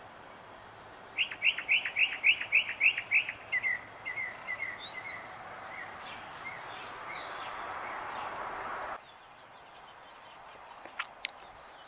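A songbird singing: a quick run of about ten sharp, downward-slurred chirps, then a softer trailing series that fades out.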